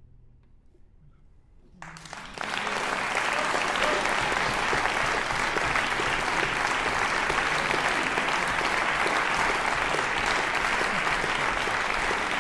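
Hush after the final note of the piece, then audience applause breaks out about two seconds in and goes on steadily.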